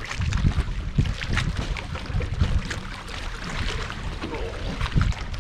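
Wind rumbling on the microphone aboard a bass fishing boat, with irregular knocks and clicks of handling.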